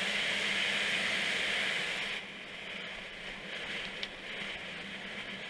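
Steady rushing of a mountain bike rolling fast down an asphalt road, tyre noise mixed with wind on the bike-mounted camera's microphone, easing off about two seconds in.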